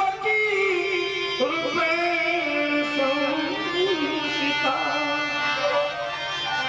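Indian devotional hymn music: a singer draws out a wordless melodic line that bends and glides in pitch over steady instrumental accompaniment.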